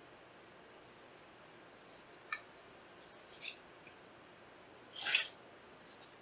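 Short scratchy rustles of a paper towel rubbing over a graphics card's circuit board and being put down, with a sharp click a little over two seconds in. The loudest rustle comes about five seconds in.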